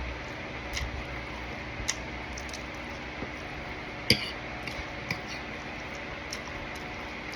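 Eating at the table: a few sparse, light clicks and clinks of tableware, the sharpest about four seconds in, over a steady low hum.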